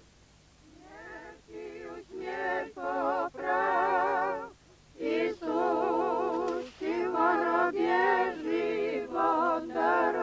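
Unaccompanied singing of an Orthodox memorial chant: long held, wavering sung notes in phrases, beginning about a second in, with a short break about halfway through.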